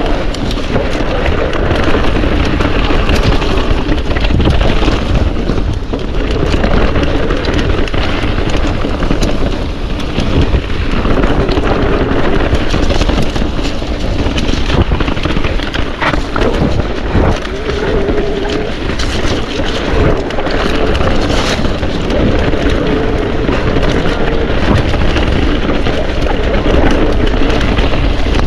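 Wind buffeting the camera microphone and tyres rumbling over a trail as a mountain bike is ridden at speed, with scattered knocks and rattles from the bike.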